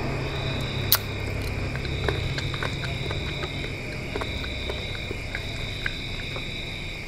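Close-miked eating sounds: chewing and small wet mouth clicks from a handful of rice and chicken eaten by hand, with one sharp click about a second in. A steady high-pitched whine and a low hum run underneath.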